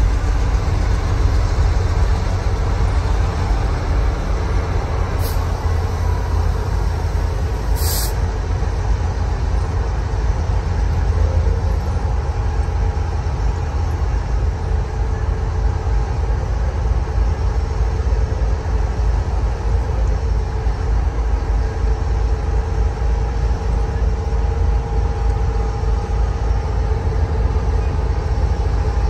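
A moving Union Pacific diesel locomotive heard from a car driving alongside it: a steady, loud low rumble, mixed with the car's own road noise, with a faint steady hum of engine tones from about halfway through.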